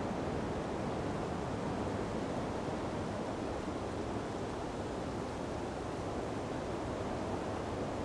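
Wind blowing in a snowstorm: a steady rushing noise with no distinct events.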